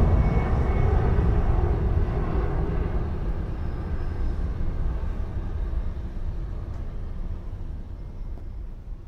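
Jet airliner engines rumbling low and steady, the noise fading gradually as the aircraft moves away on its takeoff.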